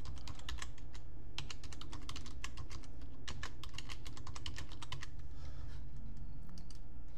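Typing on a computer keyboard: a quick run of keystrokes for about five seconds, then a few scattered clicks, over a steady low hum.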